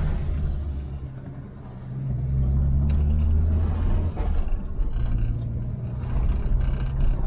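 Chevrolet Opala's engine running while driving, heard from inside the cabin: it eases off about a second in, then pulls louder again from about two seconds in, with a change in engine note around four seconds.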